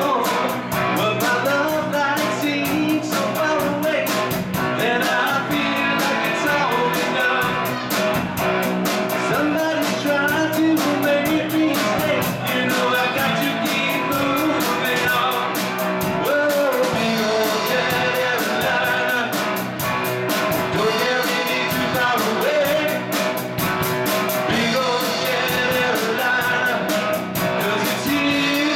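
Live rock band playing loudly and steadily, with electric guitars, bass guitar and a drum kit keeping a driving beat.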